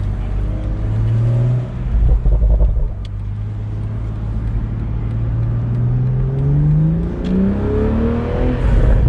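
BMW Z4 M40i's turbocharged 3.0-litre inline-six on the move. There is a short rev about a second in and a heavier low rumble around two seconds in. Then the engine pitch climbs steadily for about four seconds as the car accelerates, and falls away sharply near the end.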